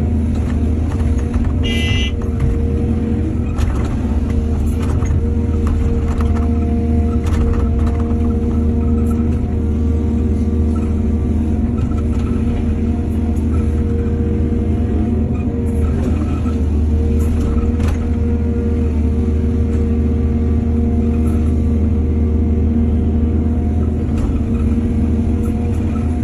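Heavy diesel engine of an excavator running steadily under load, with scattered knocks and clanks from the machinery working. A brief high squeal comes about two seconds in.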